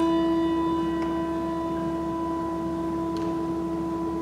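A hand-held bell ringing on after a single strike, one sustained tone with overtones slowly fading away.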